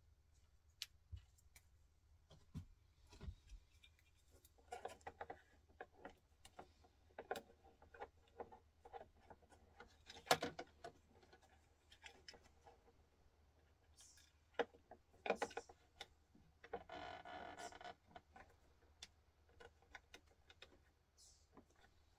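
Quiet hand-handling noises as small accessories are fitted to a scale RC crawler's roof rack: scattered light clicks, taps and rustles, with a sharper knock about ten seconds in and a rustling scrape lasting about a second a little later.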